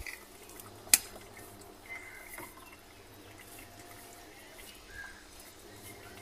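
A single sharp click about a second in as a spark plug lead's cap is pushed onto its plug by hand, with faint handling sounds and a few short high chirps around it.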